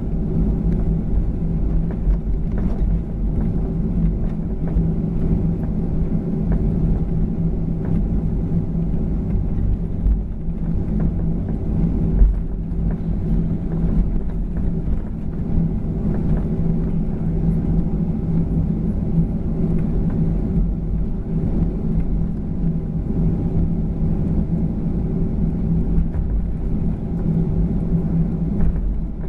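Cabin sound of a Boeing 737-900ER rolling on the ground: the steady hum of its CFM56-7B turbofans at low thrust over a low rumble from the wheels and airframe, with one louder bump about twelve seconds in.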